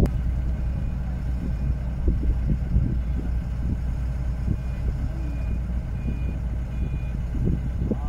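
Diesel engine of a Vögele Super 1800-2 tracked asphalt paver running steadily under load, with a low, constant hum. A few faint, short electronic beeps sound now and then.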